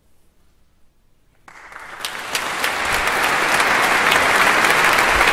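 A quiet pause, then a large audience breaks into applause about one and a half seconds in, many hands clapping and building quickly to a steady loud ovation in a big church.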